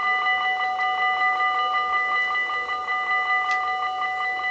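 Dutch level crossing warning bells ringing in a fast, steady, even rhythm while the half-barriers lower, with a single sharp click about three and a half seconds in.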